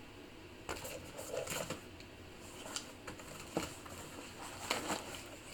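Packaged tea being handled and set down: a handful of scattered rustles and light knocks.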